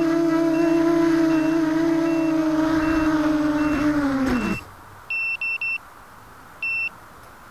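ZMR250 quadcopter's brushless motors and propellers idling on the ground with a steady electric hum, a short high beep repeating about every three-quarters of a second. About four seconds in the motors wind down in pitch and stop. Then only a low hiss remains, broken by three quick electronic beeps and a single beep a second later.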